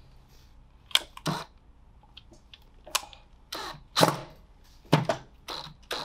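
Sharp clicks and knocks of hand tools and metal hardware on a steel safe door, about eight in all, the loudest about four seconds in, as a mounting part for a safe's combination dial is tightened down.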